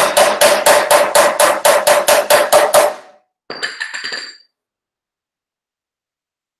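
Rapid hammering on the sheet-metal body of a Daihatsu Hijet micro truck, about five ringing blows a second, stopping about three seconds in. A second later comes a brief clink of metal hand tools being set down, then near silence.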